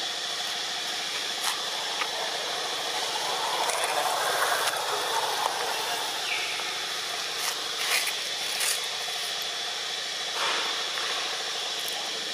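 Steady outdoor background hiss with a faint high continuous whine, swelling a little a few seconds in, broken by a handful of short clicks.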